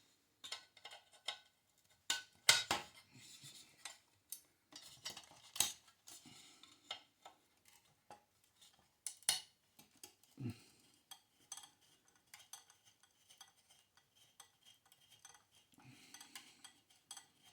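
Small metal parts clicking and clinking at irregular intervals, with a few sharper taps and a dull knock, as the old thermocouple is unscrewed from a gas water heater's burner assembly.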